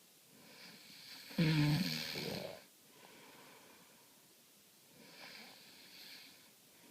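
A sleeping person snoring: a breathy intake builds into one loud, low-pitched snore lasting about a second, followed a few seconds later by a quieter breath.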